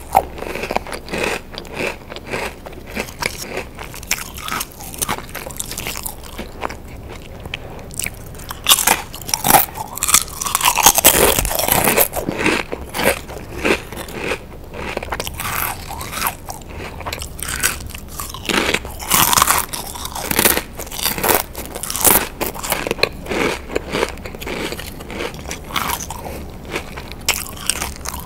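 Pringles crisps being bitten and chewed close to the microphone: an irregular string of sharp crisp crunches, with short quieter gaps between bites.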